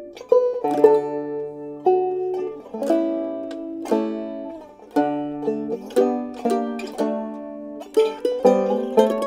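Background instrumental music played on plucked strings: notes and chords struck about every half second to a second, each ringing and then fading.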